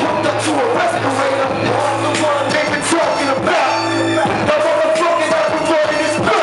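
Loud hip hop backing beat with a steady drum pattern and sustained bass, with a vocal over it.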